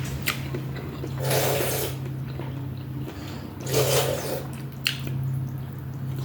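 Mouth sounds of eating Shanghai noodles: two wet slurps, one about a second in and one about four seconds in, with small clicks between them. A steady low hum runs underneath.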